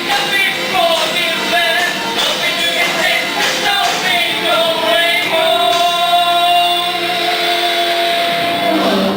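Live rock band playing with a singer, whose melody ends in one long held note through the second half.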